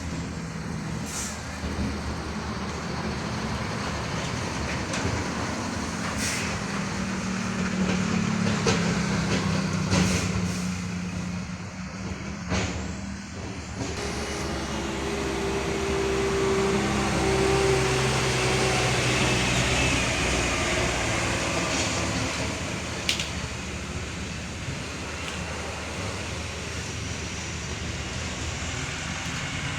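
Heavy road traffic passing, with truck and bus diesel engines running and changing pitch as they go by. A few short sharp sounds stand out over the engine noise.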